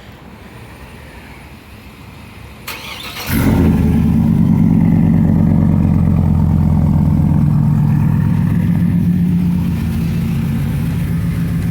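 Work truck's engine cold-started through long-tube headers and a straight-pipe exhaust: a brief crank about three seconds in, then it catches and runs loudly, settling a little lower near the end.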